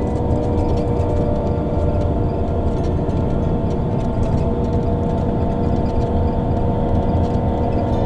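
Engine drone and road rumble heard from inside a moving vehicle: a low rumble with a steady hum of a few pitches.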